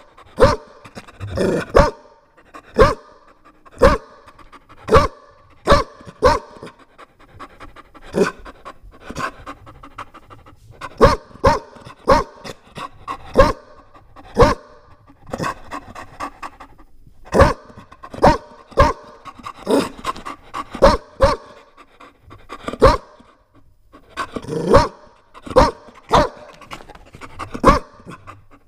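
Chow Chow dog barking very loud, single sharp barks about a second apart in several runs with short pauses between them.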